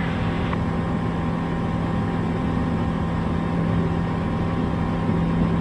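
Steady drone of the Bristell's Rotax 914 turbocharged four-cylinder engine and propeller in cruise flight, heard inside the cockpit.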